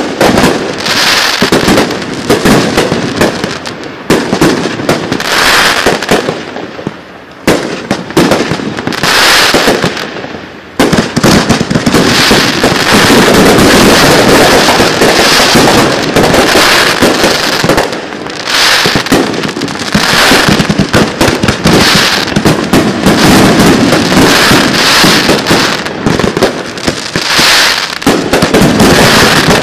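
Loud finale barrage of 1.3G display fireworks: aerial shells bursting in rapid, overlapping bangs. The bursts thin out briefly about seven and ten seconds in, then merge into a nearly continuous volley from about eleven seconds on.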